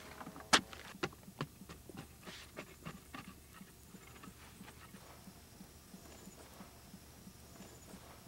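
Hand digging in earth: a few sharp knocks of a tool striking soil and stones in the first second and a half, then soft, even thuds repeating about three times a second.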